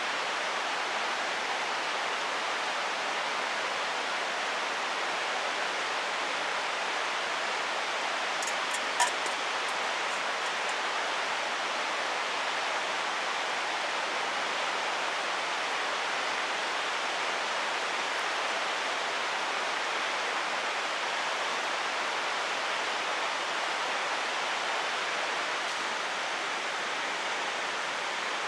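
Mountain stream water rushing steadily, with one short sharp click about nine seconds in.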